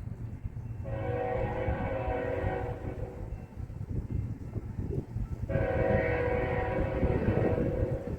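Train horn sounding two long blasts, each starting abruptly on a steady chord, the first about two seconds long and the second about three, over a low steady rumble.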